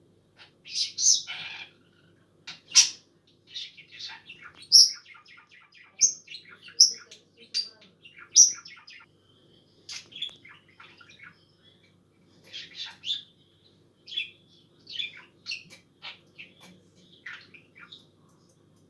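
Budgerigar chirping and chattering in bursts of quick high notes and sharp chirps, with a short pause about halfway through.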